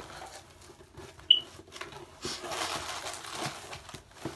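Rustling and crinkling of packaging being handled while an item is taken out of a cardboard shipping box, with a sharp click a little over a second in.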